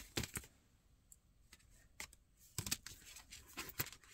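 Oracle cards being handled and turned: a scattering of faint clicks and snaps of stiff card stock, bunched in a few short clusters.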